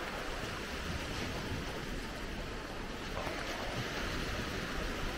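Steady wash of surf and wind on the microphone, with no distinct events.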